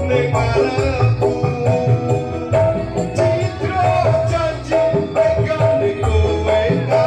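Javanese pop band music with a steady drum beat, hand-drum and shaker strokes, and a held melody line, played as an instrumental passage between sung lines.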